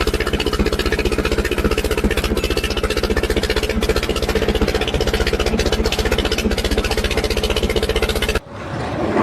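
An engine-driven machine running steadily with a fast, even pulse, stopping abruptly about eight seconds in.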